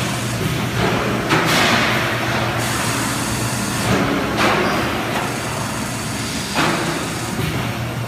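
Transformer corrugated-fin spot welding machine at work: a steady low hum broken by three hissing bursts, the first and longest about a second and a half in, the others at about four and six and a half seconds.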